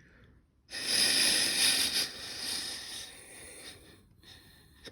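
A person blowing hard by mouth through a small air passage in a spray gun part, the air hissing through. The blow starts about a second in and fades weakly after a couple of seconds.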